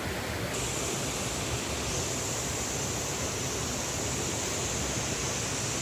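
River water rushing: a steady, even rush of noise. A thin high-pitched hiss joins about half a second in and grows stronger about two seconds in.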